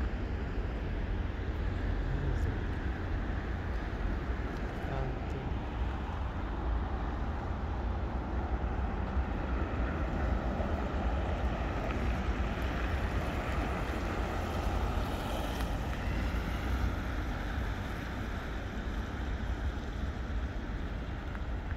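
Steady city traffic noise: cars running along a street, an even wash of sound with a strong low rumble throughout.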